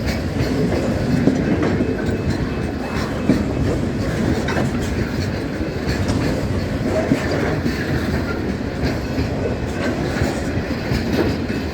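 Freight train wagons rolling past, a steady rumble of steel wheels on rail with rapid clicking over the joints.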